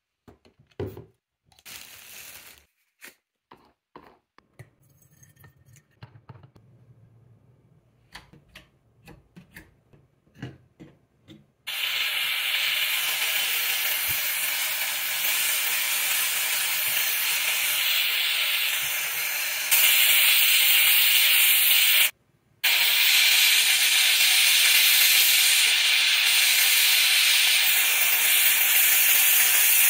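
Handheld steam cleaner jetting steam onto a greasy stove: a loud, steady hiss that starts about a third of the way in after a run of clicks and light knocks, gets a little louder, cuts out for a moment and starts again.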